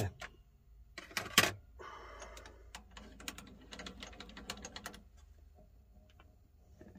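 Hand handling the stopped MX-210V mini lathe's controls: two sharp metal knocks about a second in, then a quick run of light clicks while the cross-slide handle is wound back.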